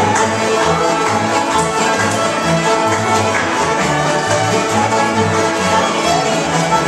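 Acoustic string band playing a tune together: a bowed fiddle leads over strummed acoustic guitars and a mandolin, with an upright bass plucking a steady beat underneath.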